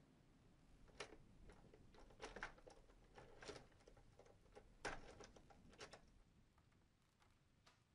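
Faint, irregular metallic clicks and rattles at a door's lock and handle, as if someone is working the lock, from about one second in until about six seconds in, then dying away.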